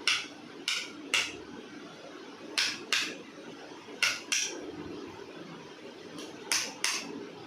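Sharp clicks: one at the start, then four quick pairs, the two clicks of each pair a third of a second apart and the pairs about a second and a half apart, over a steady low background hum.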